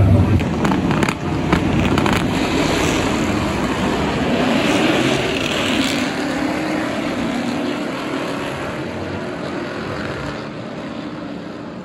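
A field of V8 SuperUtes race utes pulling away from the grid together, a dense mass of V8 engine noise that fades steadily as the pack moves off down the straight.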